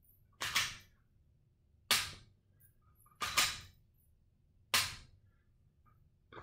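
A pistol dry-fired with a laser training cartridge: four sharp clicks of the firing mechanism falling, about one and a half seconds apart, two of them with a second quick click right after.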